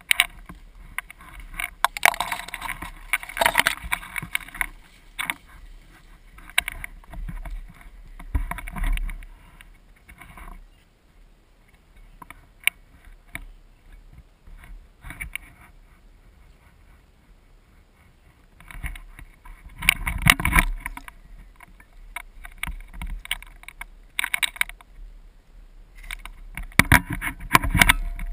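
Handling and movement noise on a rifle-mounted camera: rustling in uneven spells, with scattered clicks and knocks. It is busiest in a few stretches, the heaviest about two, twenty and twenty-seven seconds in.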